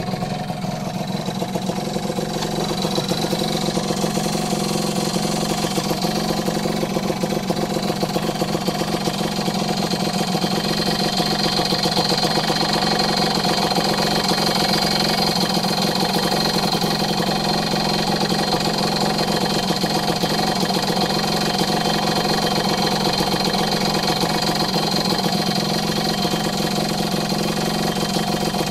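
Modenas Dinamik 120 two-stroke single-cylinder engine idling steadily, with a leaking cylinder head gasket that blows air bubbles at the head joint.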